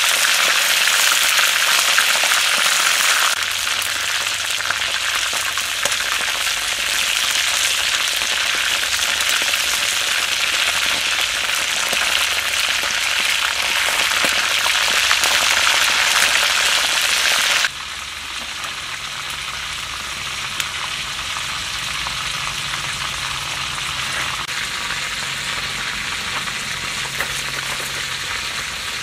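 Whole quails deep-frying in hot oil in a wok, a dense steady sizzle. It is loudest for the first two-thirds, then drops abruptly to a quieter sizzle.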